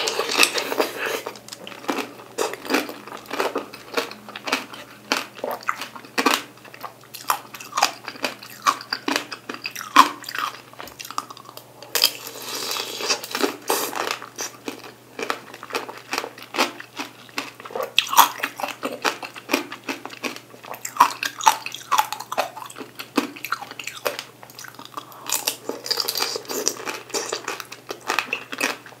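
Close-up biting and chewing of whole peeled mandarin oranges: a steady run of irregular small clicks and smacks from the mouth.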